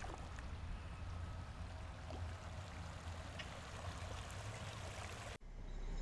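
Steady outdoor background noise, a low rumble with a light hiss and a few faint ticks. It cuts out abruptly near the end, and music starts to rise in.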